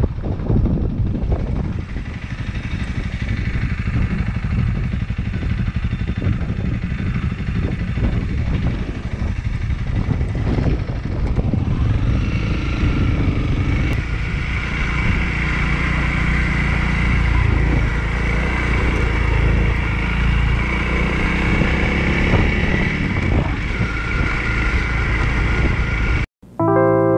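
Honda CRF 300L dual-sport motorcycle's single-cylinder four-stroke engine running while riding. Near the end the sound cuts off abruptly and piano music begins.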